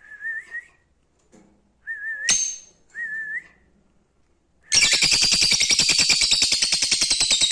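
Lovebirds calling: a few short warbling whistles and a sharp chirp, then from about five seconds in a loud, rapid buzzing chatter.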